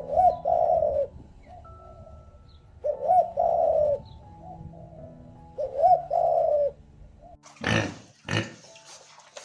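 A bird cooing three times, each call about a second long with a quick rise and fall at its start, over soft background music. Near the end come two short, loud, noisy bursts.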